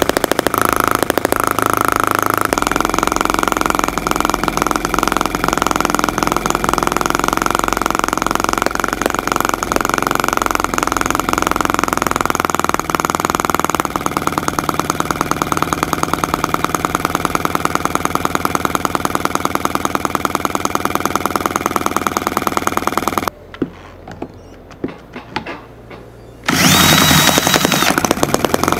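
Eachine ET5S miniature horizontal two-cylinder model engine running fast with a rapid, even beat; it cuts out about 23 seconds in, leaving a few quiet clicks. Near the end an electric drill spins up loudly with a steady whine, turning the engine over to restart it.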